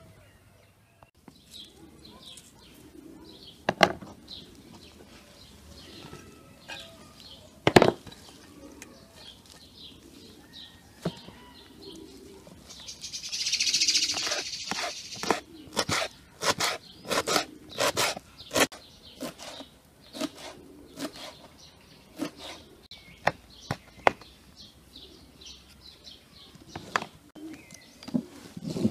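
Small birds chirping in the background. A kitchen knife chopping fresh parsley on a wooden cutting board, in quick runs of knocks about three a second through the second half, with a couple of single sharp knocks earlier.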